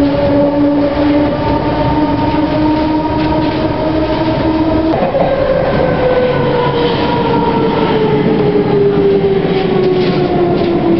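London Underground C Stock train heard from inside the carriage: rumbling running noise under a steady motor whine. About halfway through, the whine begins to fall steadily in pitch as the train slows into a station.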